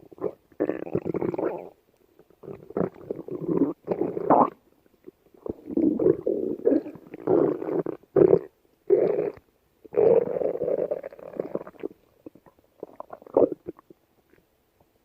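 A hungry person's stomach growling: about ten irregular rumbles, some brief and some lasting a second or more, with short silent gaps between them.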